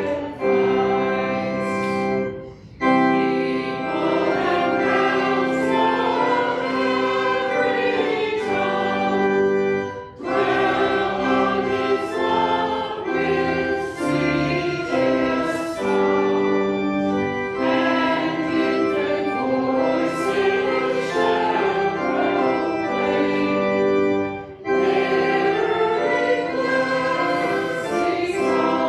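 A church congregation singing a hymn with organ accompaniment, in sustained phrases with short breaks between lines.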